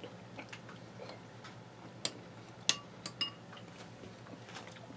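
A spoon clinking against a ceramic soup bowl: a few short, sharp clinks between about two and three and a half seconds in, the loudest with a brief ring, as soup is scooped out of the bowl.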